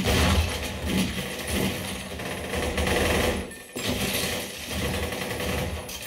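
Movie gunfight soundtrack played through a Klipsch RP-450C center-channel speaker and heard in the room: rapid gunfire, stone shattering and debris clattering down, with a brief lull about three and a half seconds in.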